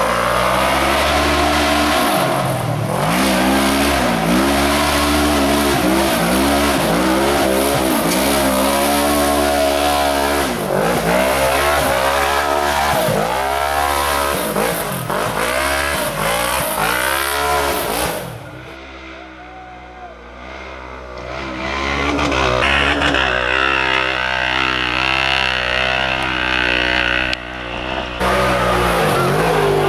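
Engine of an unlimited-class side-by-side race buggy revving hard, its pitch rising and falling again and again about every second. The sound drops away for a few seconds past the middle, then the engine noise returns.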